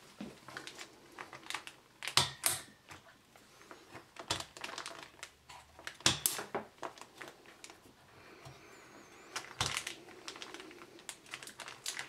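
Plastic push-pins of an Intel stock CPU heatsink-fan snapping into the motherboard holes, with lighter clicks and rattles from handling the cooler and its fan lead. A few loud snaps stand out among the lighter clicking, spaced a second or two apart.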